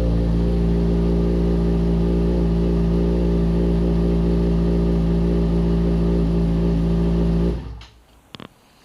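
Yamaha FZ6R's 600 cc inline-four engine idling steadily, the crashed bike still running. The sound stops abruptly near the end, followed by a few sharp clicks.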